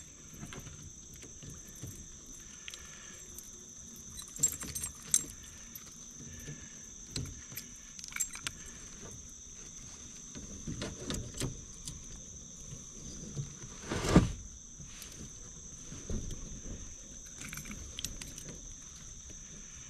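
Scattered clicks, rattles and knocks of a just-landed largemouth bass and tackle being handled in a kayak, with one louder knock about two-thirds of the way through. A steady high drone of insects runs underneath.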